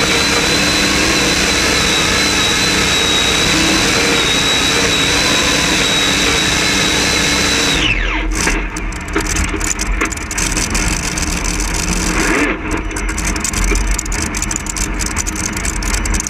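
Pulling tractor's big V8 engine running flat out with a steady high whine, then about eight seconds in the throttle is cut and the whine falls away. The engine then runs lumpy and uneven at low speed as the tractor comes to a stop at the end of its pull.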